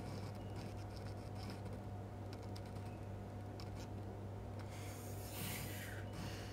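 Quiet room tone with a steady low electrical hum, faint scattered scratching and rubbing clicks, and a short hissy rustle about five seconds in.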